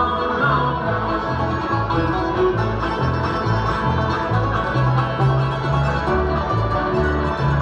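Bluegrass band playing an instrumental passage without singing: banjo and guitar picking over a bass line that changes note about twice a second.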